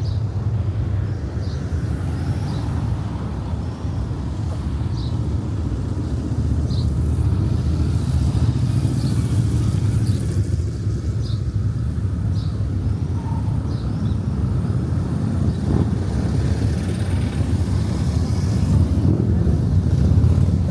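Street ambience: a steady low rumble of road traffic, with short high chirps scattered throughout.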